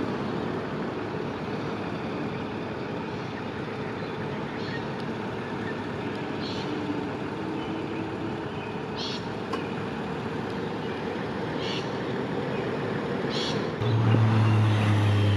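Steady background of road and engine noise with a few short high chirps. About fourteen seconds in, a fire truck's warning device starts: a loud, low, steady horn-like tone.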